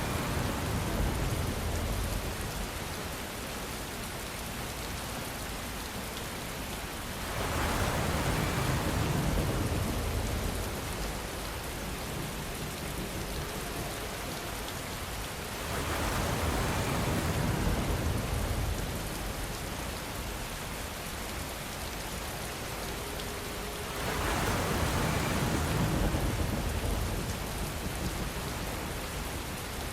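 Steady rainfall, an even hiss that swells louder with a deeper rumble about every eight seconds, four times in all.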